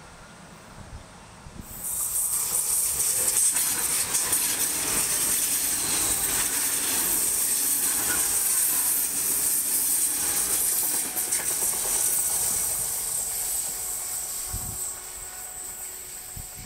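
ČD Class 680 Pendolino electric tilting train passing close at speed: a sudden loud rush of wheel and air noise with a strong high hiss starts about two seconds in. It holds for about ten seconds, then fades as the train draws away.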